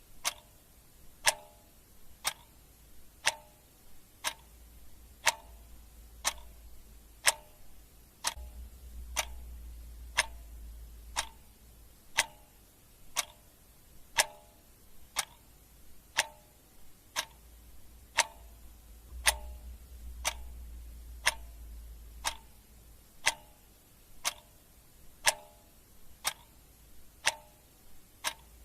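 Clock ticking steadily at about one tick a second, with a faint low hum beneath that swells twice.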